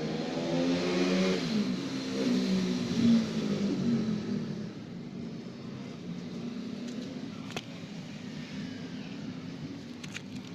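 A motor vehicle engine revving and passing, loudest in the first few seconds, then settling to a lower, steady drone. A single sharp click about seven and a half seconds in.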